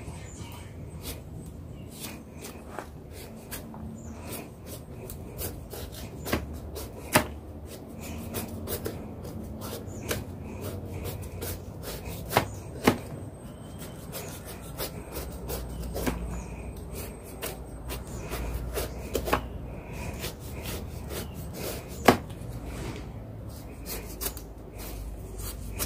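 A knife peeling and cutting the rind of a young jackfruit: steady scraping and rubbing with scattered sharp knocks of the blade, the loudest about 7, 13 and 22 seconds in.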